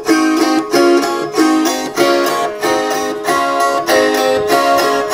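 Gusli strummed in a steady rhythm, about two strums a second, alternating between two chords as the left-hand fingers damp one set of strings and then the other. It is a simple dance tune.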